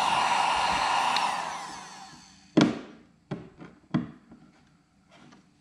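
Electric heat gun blowing steadily, switched off about a second in, its fan dying away over the next second. Then one sharp knock and three lighter knocks.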